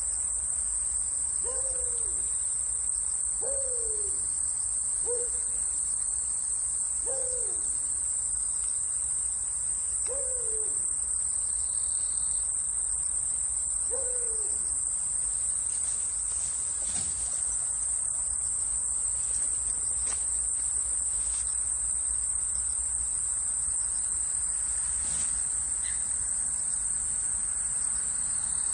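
Crickets shrilling in a steady, high-pitched drone. In the first half a low, falling call repeats about six times, a few seconds apart, and a few faint clicks come later on.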